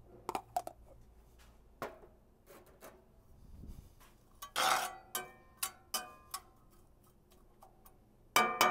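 Metal spatula stirring diced onions in a cast iron skillet: scattered clicks and scrapes, one longer scrape about halfway, and a ringing clank of metal on the iron pan near the end.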